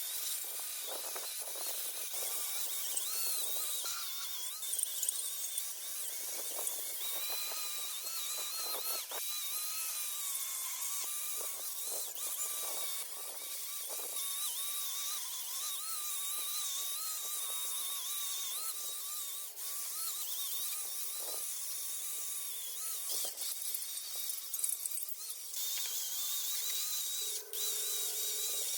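A small high-speed power tool running with a whining pitch that wavers up and down, with scattered knocks and scrapes of workshop handling.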